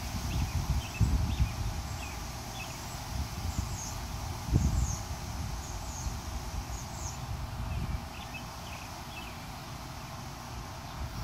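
Small songbirds giving short, high chirps in scattered little clusters, over a low rumble with a few bumps on the microphone; the heaviest bump comes about four and a half seconds in, and the rumble eases near the end.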